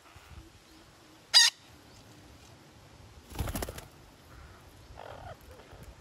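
Parakeets calling at a tree-trunk nest hollow: one sharp, shrill screech about a second and a half in, then a brief rustling flutter about two seconds later, and a fainter, lower call near the end.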